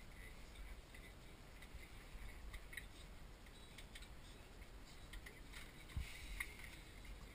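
Wooden automaton's hand-cranked mechanism turning: faint, scattered clicks and taps of wooden parts, with a sharper knock about six seconds in.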